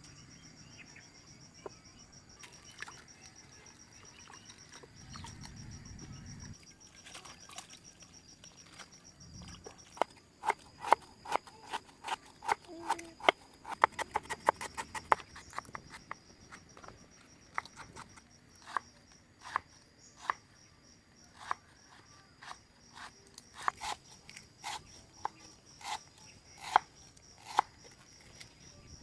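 Crickets trilling steadily, with a run of sharp, irregular knocks starting about ten seconds in: several a second at first, then more spaced out.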